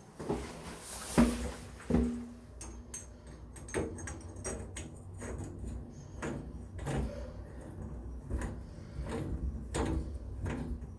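Metal tools knocking and clicking against a faucet stem and its fitting during hand installation. Two sharp ringing knocks come about a second and two seconds in, followed by irregular small clicks and scrapes.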